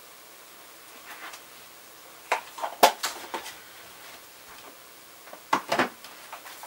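A few sharp clicks and knocks of small dye jars and their lids being handled and set down. The loudest comes about three seconds in, and another pair comes near the end.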